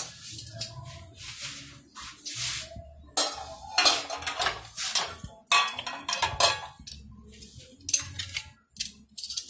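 Metal tongs clinking and scraping against a glass baking dish and a stainless steel pot as seasoned chicken wings are lifted out and dropped into the pot. Irregular clatters, some with a brief metallic ring.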